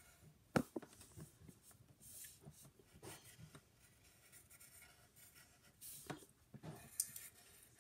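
Faint scratching of a child drawing on paper, the strokes of a pencil or crayon as the cow's spots are outlined, with a few sharp taps, the loudest about half a second in.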